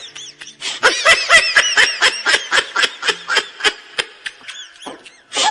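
High-pitched giggling laugh sound effect: rapid ha-ha pulses about five a second, tailing off after about four seconds, with another laugh starting right at the end.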